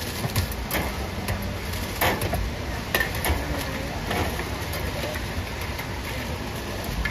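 Food-stall cooking clatter: scattered sharp clicks and clinks of utensils over a steady background hum of market noise, with faint voices.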